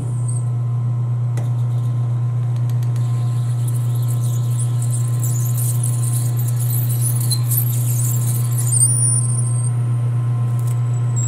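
Metal lathe switched on and running with a steady hum while a twist drill in the tailstock chuck bores into a spinning Delrin workpiece. A thin, high squeal from the drill cutting the plastic sets in near the end.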